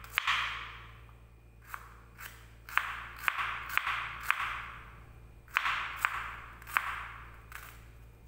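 Kitchen knife slicing shallots on a wooden cutting board. Each cut gives a crisp tap of the blade on the board with a short rasp, about a dozen cuts in irregular runs.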